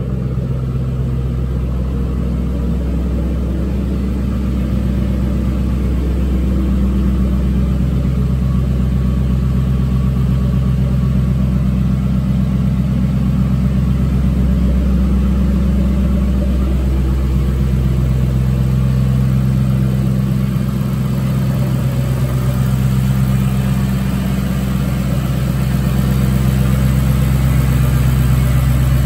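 2008 Ford Mustang GT's 4.6-litre three-valve V8 idling steadily through Pypes axle-back exhausts, still in its warm-up after a cold start. A little louder near the end.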